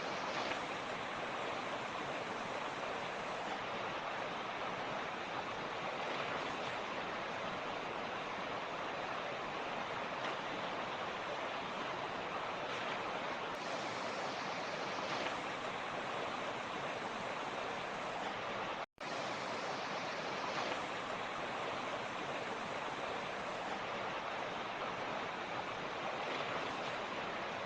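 Rushing creek water, a steady even rush of flowing stream. The sound cuts out completely for a split second about two-thirds of the way through.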